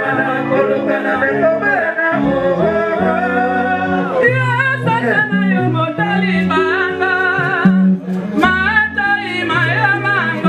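A live band plays: a male singer with a wide vibrato sings into a microphone over electric guitar, keyboard and steady bass notes. The singing grows stronger about four seconds in.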